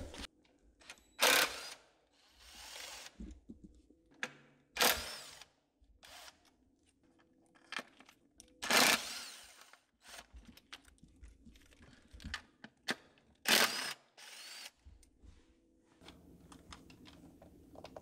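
Cordless drill/driver spinning in several short bursts, about four loud ones, as it works bolts on the engine, with quieter handling clicks between.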